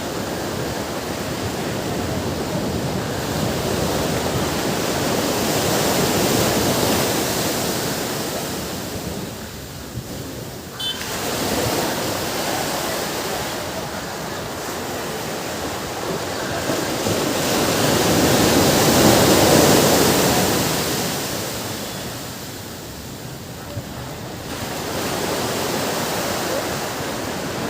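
Ocean surf on a beach: waves breaking and washing up the shore, the hiss swelling and falling back in slow surges, loudest about six seconds in and again near twenty seconds.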